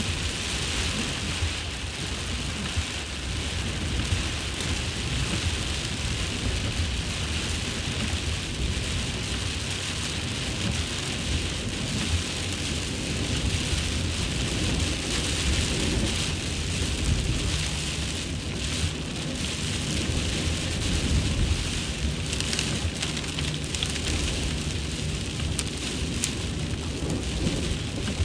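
Very heavy rain pouring down in a steady, dense hiss, with a low rumble underneath.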